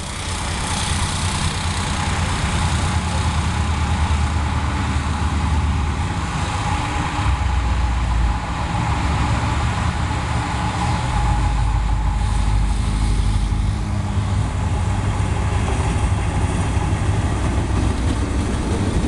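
Diesel-electric freight locomotive, a CRRC CDD6A1, approaching with a train of covered wagons: a steady engine drone over a continuous low rumble. The locomotive comes close by near the end.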